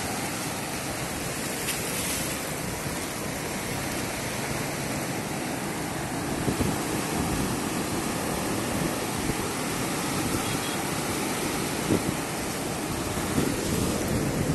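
Small sea waves breaking and surf washing in over the rocks at the waterline, a steady rush of water that grows a little louder about halfway through.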